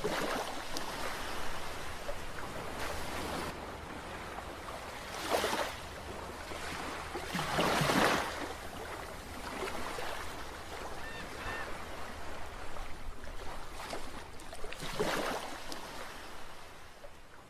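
Small ocean waves breaking and washing up a sandy beach: a steady surf noise that swells several times as waves break, the biggest surge about halfway through.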